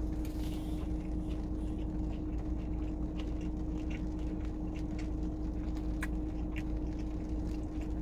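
Steady hum inside a parked car's cabin, with one constant tone running through it and scattered light clicks.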